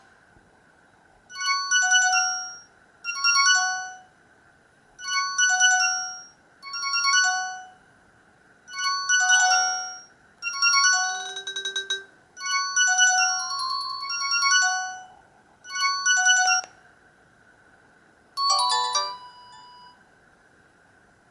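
Alcatel OT-117 mobile phone playing one of its built-in ringtones: a short electronic melody in phrases of about a second, separated by brief pauses. Near the end comes one different short burst of tones.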